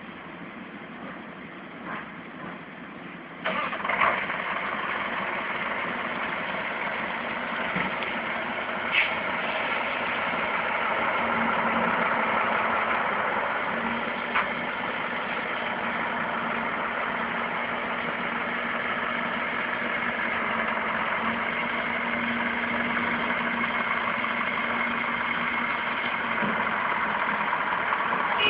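A vehicle engine running steadily, with a sudden rise in level about three and a half seconds in and a few faint knocks.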